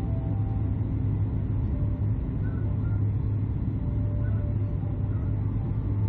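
Cabin noise of a Boeing 737 MAX 9 airliner: a steady low drone that does not change.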